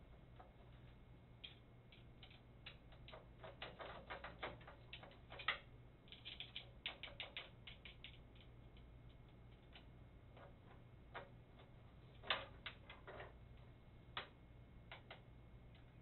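Faint, irregular light metallic clicking and rattling of a slack pinsetter elevator chain and its master link being worked by hand. The clicks come in scattered clusters over a steady low hum.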